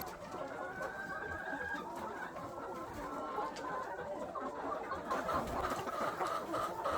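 A flock of chickens clucking and calling continuously, many birds at once, getting busier near the end.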